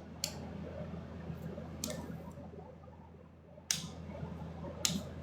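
Pet drying box running with a steady low fan hum, and four sharp clicks spaced about a second or more apart.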